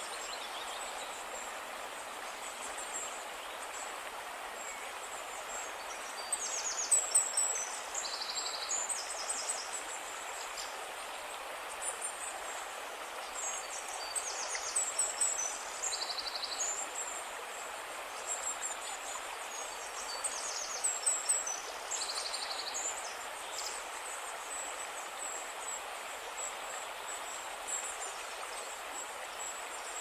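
Shallow rocky stream flowing steadily over stones. A bird's high-pitched song breaks in three times, roughly seven seconds apart.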